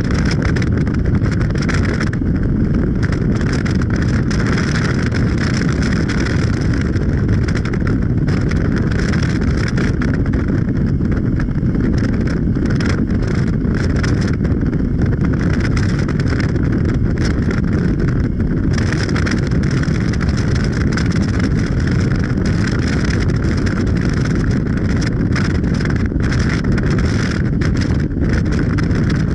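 Steady running noise of a vehicle under way at a constant speed: a continuous low rumble with a rough hiss of wind on top.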